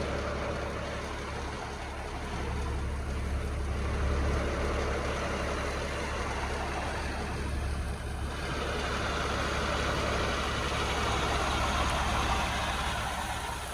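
A vehicle engine running steadily with a low drone, under a rushing hiss that grows louder about eight seconds in.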